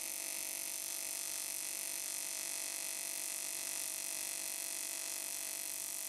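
TIG welding arc on aluminium, a steady electrical buzz with a bright hiss above it, as filler is run into a hole being welded shut.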